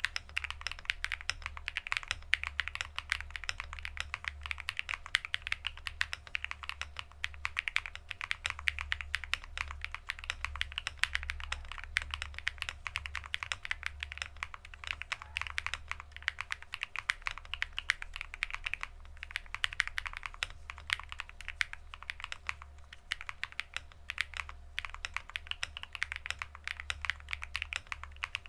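Continuous fast typing on a Weikav Sugar65 mechanical keyboard with BSUN BCP linear switches and dye-sub PBT Cherry-profile keycaps: a dense, unbroken stream of key clacks.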